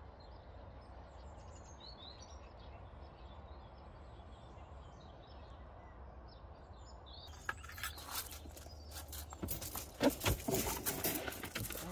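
Faint birdsong chirps over a steady low outdoor hum. After about seven seconds, the louder metallic rattling and clicking of a wire dog crate being handled in a car boot.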